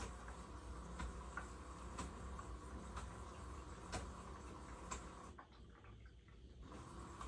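LG Direct Drive front-loading washer running a wash cycle with its circulation pump: a faint, steady low hum with a short tick about once a second. The higher hissing part cuts out for about a second near the end, then returns.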